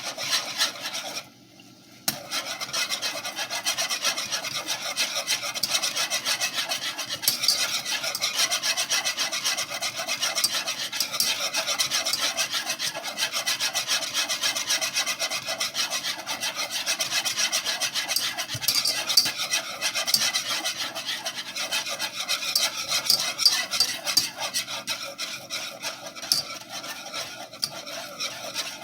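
Spoon stirring a pot of thickening grits, a steady rough scraping against the bottom and sides of the pot, broken briefly about a second and a half in.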